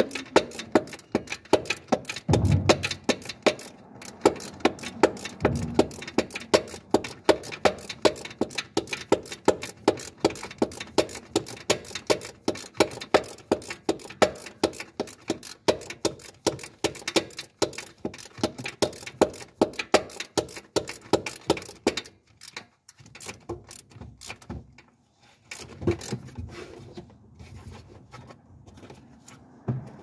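Ratchet wrench clicking steadily, about three or four clicks a second, as a bolt is turned out. Near the end the clicking stops, leaving a few scattered knocks and clunks.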